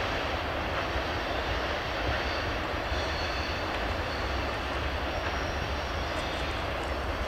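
Freight train rolling past: a steady rumble of the wagons running over the track, with a few faint high squeaks near the end.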